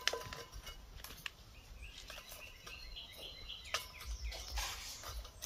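Lumps of charcoal knocking and clinking as they are set by hand into a clay coal pot, a few sharp knocks spaced out over several seconds. Birds chirp in the background around the middle, over insect noise.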